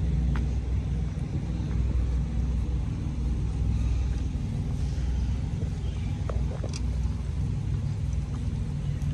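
Semi truck's diesel engine running with a steady low rumble, with a few faint clicks over it.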